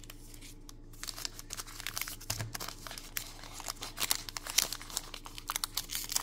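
Plastic wrapper of a baseball card pack crinkling as it is picked up and handled, starting about a second in and growing busier toward the end.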